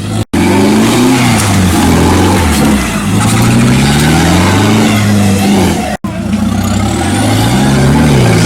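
Off-road jeep engines revving hard, their pitch rising and falling again and again as the vehicles work through the course. The sound cuts out briefly twice, about a third of a second in and about six seconds in.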